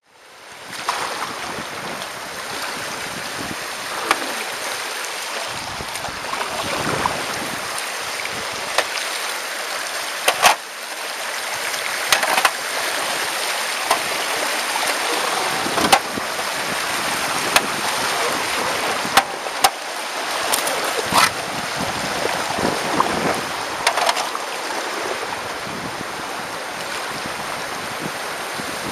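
Water rushing over a shallow, rocky river rapid, heard from a kayak riding down it, with a sharp knock now and then.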